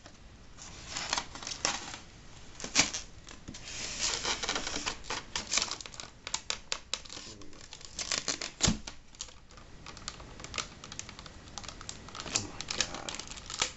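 Styrofoam box lid being worked loose and lifted off by hand: foam rubbing and scraping on foam with many small clicks, plus light rustling of plastic wrap. One heavier knock about two-thirds of the way through.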